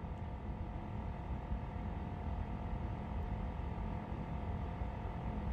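Faint steady background rumble with a light, even hum: room tone with no distinct events.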